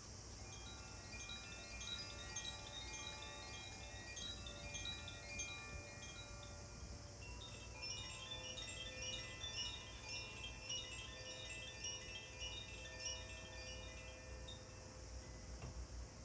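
Makino-style tuned chimes ringing in a sound bath: many bright, sustained bell-like tones overlap in a gentle cascade, growing busier about halfway through.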